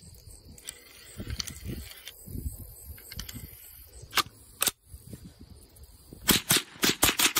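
Mossberg 51 semi-automatic .22 rifle: handling rustle and two sharp clicks a little after four seconds, then rapid fire from about six seconds in, about five shots a second.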